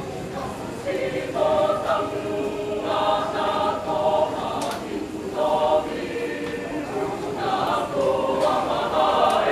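A church choir singing in sustained phrases with short breaks between them, swelling louder about a second in.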